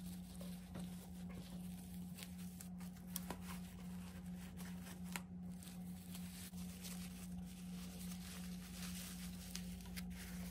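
Soft rustling and crinkling of a disposable diaper being unfolded and rolled up by hand, with a few light ticks, over a steady low hum.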